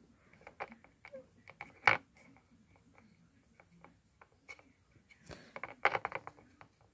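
Quiet, scattered clicks and taps from hands handling painting things close to the microphone, with a sharper tap about two seconds in and a quick run of them near the end.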